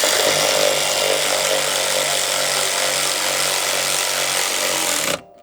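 Handheld power tool running steadily at full speed for about five seconds, then stopping, with a brief burst at the very end.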